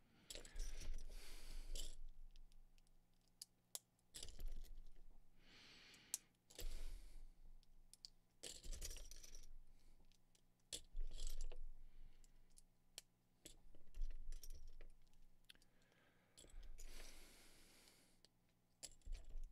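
Small plastic Lego pieces clicking and snapping together in the hands, with sharp clicks scattered throughout and a few longer clatters of loose plates being pushed through a pile.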